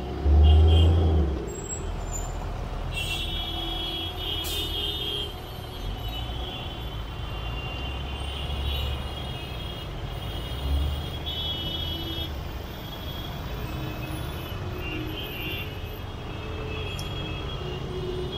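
Dense, slow-moving city traffic heard from inside the flow: a steady low rumble of engines and tyres, with a loud low rumble lasting about a second just after the start. Short high tones like vehicle horns come and go several times.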